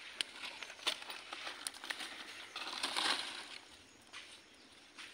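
Dry palmyra palm fronds crackling and rustling, with scattered sharp snaps and a louder crunching rustle about three seconds in.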